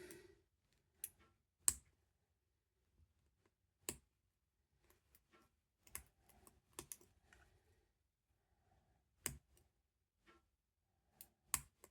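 Faint, irregular small clicks and ticks of a lock pick and tension tool working the pins of a padlock during single-pin picking, about nine of them spread out with near silence between.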